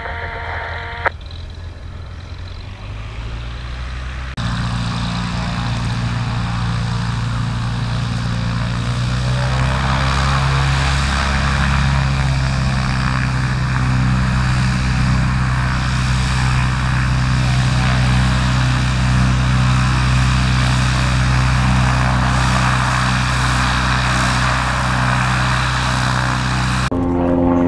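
Light piston-engine propeller aircraft running at high power, a loud steady engine-and-propeller sound that comes in abruptly about four seconds in and holds until just before the end.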